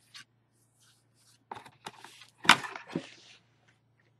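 Handling noise as a plastic die-cutting and embossing machine is lifted out of its cardboard box: a cluster of knocks and scrapes against cardboard, the loudest a sharp knock about halfway through.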